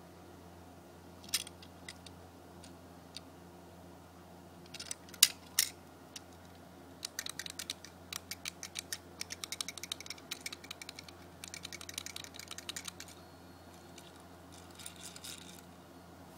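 Handling of a small die-cast toy car and its packaging: a few sharp clicks and knocks, the loudest a pair about five seconds in, then several seconds of rapid light clicking and a short burst near the end.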